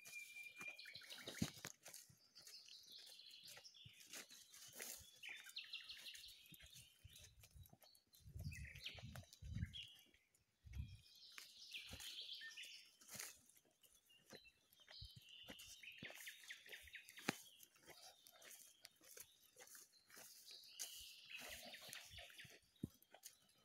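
Faint footsteps and rustling of leaves and grass along an overgrown woodland path, with bird chirps coming and going, and a few low thumps about eight to eleven seconds in.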